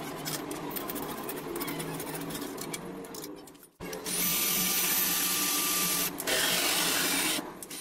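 Makita cordless drill/driver running as it drives in the steel bolts of a ballscrew end support, in two stretches with a brief break a little before halfway. The first stretch is a rattling run with dense clicking. The second is steadier, with a thin whine.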